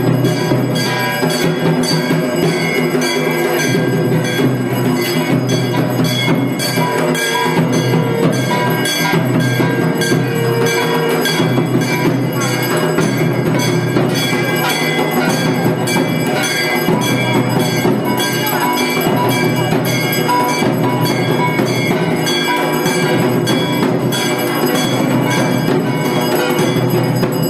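Background music with percussion, at a steady level throughout.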